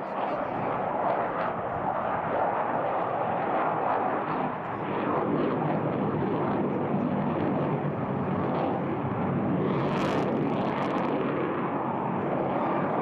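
Fighter jet flying at an airshow: a steady, loud rush of jet engine noise that holds throughout.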